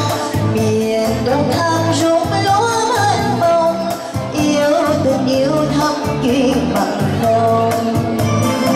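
Live music: a woman singing into a microphone over electronic keyboard backing with a steady beat.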